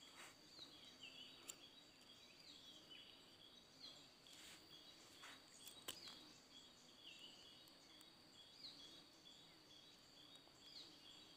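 Near silence: faint outdoor ambience with a steady high insect buzz and a bird's short, falling chirps repeating every second or so.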